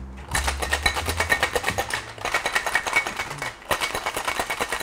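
Ice cubes rattling rapidly in a metal tin-on-tin cocktail shaker, shaken hard, with a short break about three and a half seconds in. This is the wet shake with four ice cubes, after a dry shake to froth the cream.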